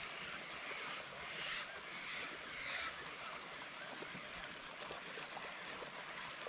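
Baitcasting reel being wound slowly to work a surface lure, with faint light ticking over a steady outdoor hiss and a few faint high chirps in the first half.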